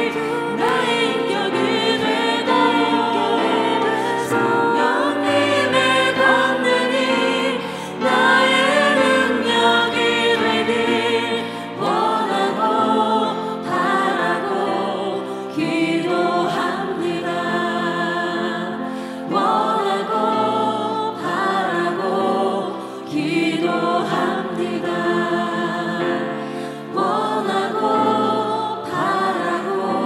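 Women's choir and soloists singing a Korean worship song in Korean, over steady held low notes of an instrumental accompaniment.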